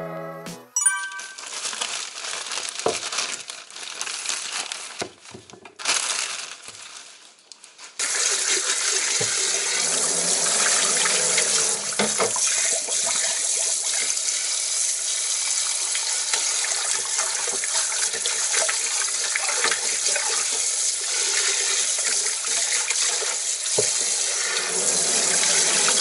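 Kitchen faucet running into a stainless steel sink as things are rinsed under the stream. At first the water comes unevenly with gaps and a few knocks, then from about eight seconds in it runs steadily.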